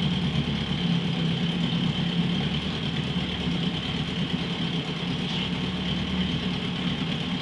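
Johnson 7.5 hp two-cylinder two-stroke outboard motor running steadily, with its lower unit in a test tank of water.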